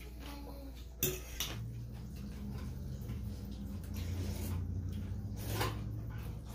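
Fork and spoon clinking and scraping against ceramic noodle bowls while eating noodle soup, with a sharp clink about a second in. Noodles are slurped in between.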